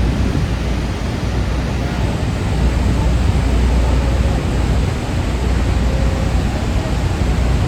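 Steady roar of Niagara Falls heard close up from a tour boat, with a deep, uneven rumble underneath.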